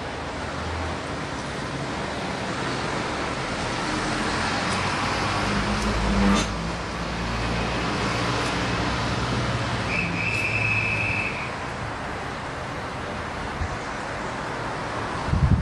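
Steady hiss and low hum from a train standing at the platform, swelling through the middle. A single sharp slam about six seconds in, like a carriage door shutting, and a short guard's whistle blast about ten seconds in, lasting about a second and a half.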